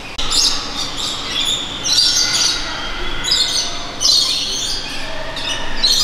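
Many caged parrots squawking and chirping together, harsh overlapping calls coming in repeated bursts that set in abruptly.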